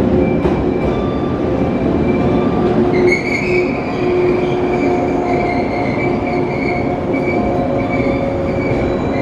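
Electric multiple-unit local train pulling into a station platform and slowing, with a steady rumble of wheels on the rails. About three seconds in, a held high squeal from the brakes or wheels begins and carries on as the train slows.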